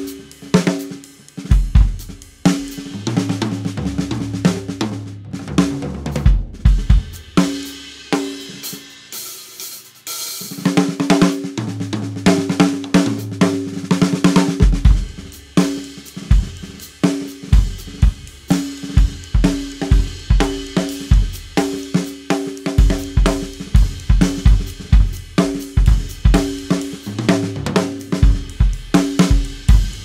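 A 1970s Ludwig drum kit played continuously: bass drum, snare and toms with hi-hat and cymbals, the drums ringing on. The playing eases off briefly about eight seconds in, then picks up again with a strong hit at about ten seconds and carries on in a steady groove.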